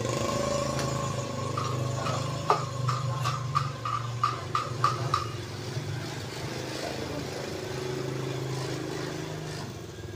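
Toyota Avanza engine idling with the uneven, limping run of a misfire, which the mechanic puts down to weak or dead ignition. Over it, a wrench works the air filter housing bolts, giving a run of about ten short squeaky clicks, about three a second, with one sharper click among them.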